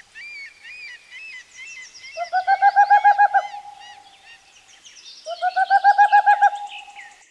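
An owl giving two trilled, rapidly pulsed hoots, each about a second long, a few seconds apart. Small birds chirp faintly throughout.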